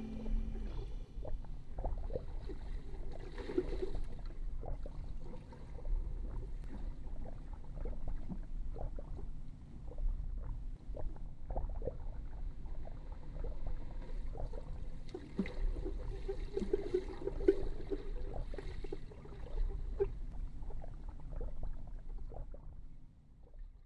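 Water heard from just below the surface: a muffled low rumble with scattered gurgles and small splashes, fading out near the end.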